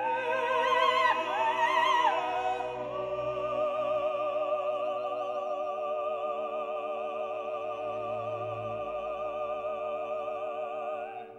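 Classical music with an operatic voice singing with heavy vibrato over sustained orchestral chords, settling into one long held note that dies away at the end.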